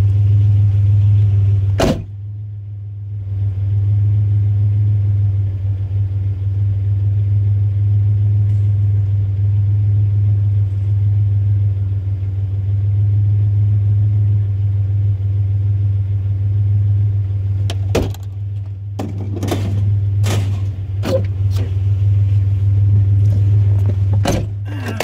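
Truck engine idling steadily, heard from inside the cab. A sharp knock comes about two seconds in, and a run of knocks and clunks near the end.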